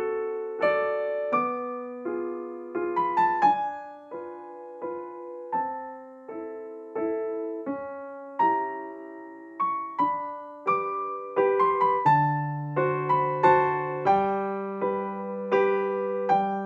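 Soft solo piano background music: a slow melody of single struck notes fading away, with lower bass notes joining about twelve seconds in.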